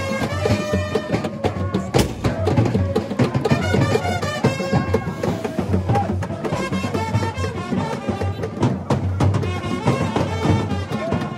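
Traditional drum music with dense percussion strokes and voices singing over it.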